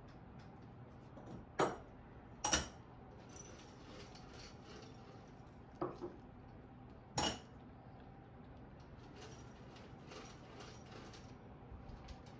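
A few sharp taps and clicks of cats' paws striking a wooden tabletop as they bat at each other, over faint room hiss. Two come close together about two seconds in, then one about six seconds in and another a second later.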